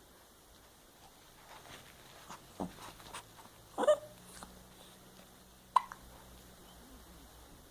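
A few short hiccups, the loudest about four seconds in.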